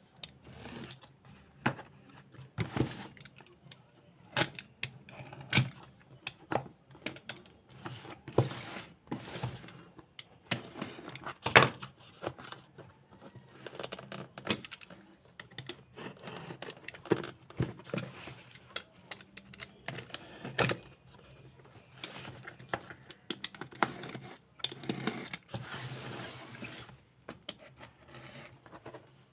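Cardboard box and packaging being opened and handled by hand: an irregular string of clicks, scrapes, tearing and rustling, with one sharp knock about twelve seconds in.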